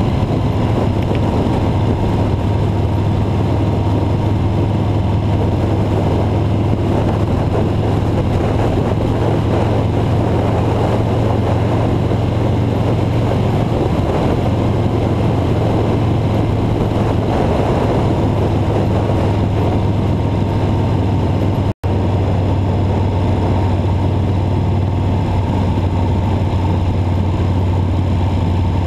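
Car driving along a snow-covered road: a steady engine drone with tyre and road noise, cutting out for an instant about 22 seconds in.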